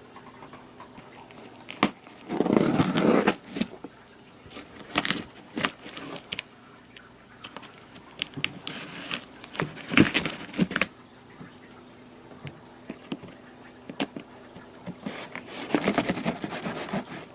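A shipping box being opened and its packaging handled: scattered clicks, scrapes and rustles, with louder rustling bursts about two to three seconds in, around ten seconds, and near the end.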